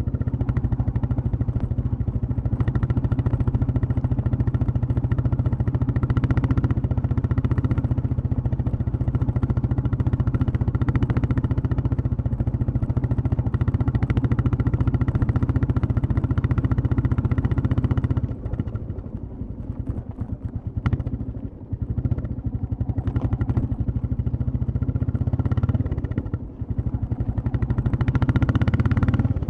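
Royal Enfield Classic 350's single-cylinder engine and exhaust running under steady throttle while riding. About two-thirds of the way through the throttle is eased off and the exhaust goes quieter and more uneven for several seconds, then it pulls hard again near the end.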